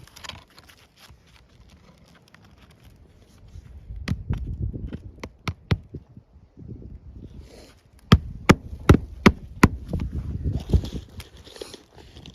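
Hammer blows on a roof: a few light taps, then a quick run of about five sharp strikes, as in driving a nail into an asphalt shingle, over scraping and shuffling on the shingles.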